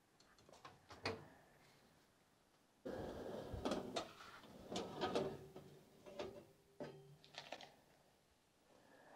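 A small electric oven's door opened and its wire rack handled: a few light clicks, then about three seconds in a sudden burst of metallic rattling and clanking, followed by scattered knocks as a powder-coated brake caliper is taken off the rack.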